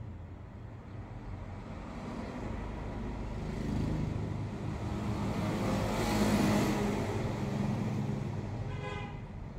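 Road traffic: a motor vehicle's engine rumble swells as it passes, loudest about six seconds in, then fades. A short higher-pitched sound comes near the end.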